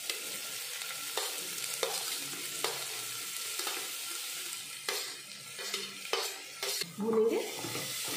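Chopped onions sizzling as they drop into hot oil in a pressure cooker, with a steady frying hiss. A steel spoon scraping them off a steel bowl adds short clinks and scrapes about every second.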